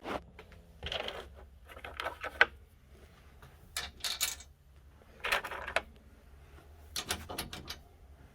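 Light metallic clicking and scraping of hand tools and small hardware in short bursts a second or two apart, as bolts with anodized washers are taken off.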